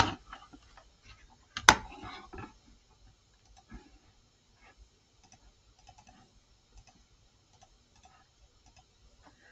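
Faint, scattered computer clicks as numbers are entered into a calculator, with one louder click about two seconds in.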